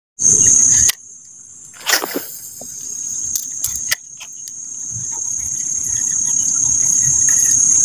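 Insects buzzing in a steady, high-pitched drone that grows louder over the last few seconds, with a few brief clicks and knocks about two to four seconds in.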